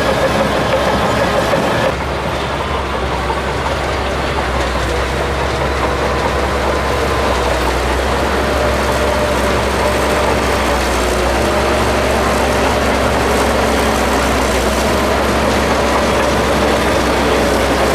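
Shantui DH17C2 crawler bulldozer working: its diesel engine and steel tracks running steadily under load. The sound shifts abruptly and drops slightly in loudness about two seconds in.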